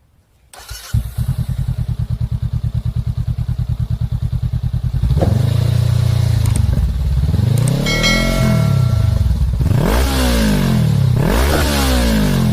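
Motorcycle engine starting about a second in and idling with an even beat. From about five seconds in it is revved up and down several times.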